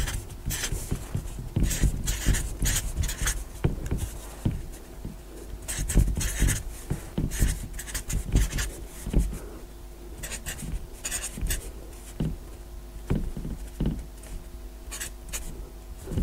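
Black marker pen writing digits on a board: a quick run of short strokes one after another, with brief pauses between groups, over a steady low room hum.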